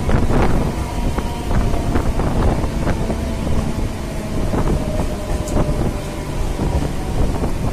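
A MEMU electric multiple-unit train in motion: a steady low rumble with irregular knocks and clatter from the wheels and running gear, and wind buffeting the microphone.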